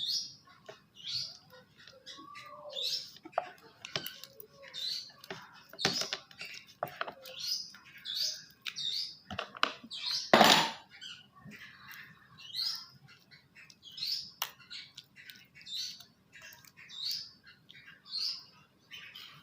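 A small bird chirping over and over, short high chirps about once a second, among scattered clicks, with one louder noisy burst about ten seconds in.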